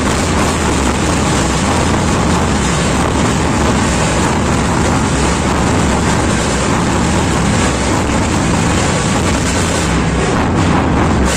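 Dhol-tasha troupe playing together at full volume: many large barrel dhols and small tasha drums making a dense, unbroken wall of drumming.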